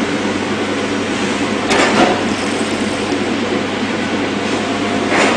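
Electric plastic spiral coil binding machine running steadily, its motor and feed rollers giving a continuous mechanical rumble that grows briefly louder twice, about two seconds in and near the end.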